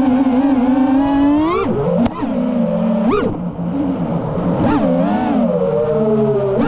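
5-inch FPV quadcopter's brushless motors and propellers whining steadily, with sharp rises in pitch about three times as the throttle is punched, each falling back as the throttle eases off.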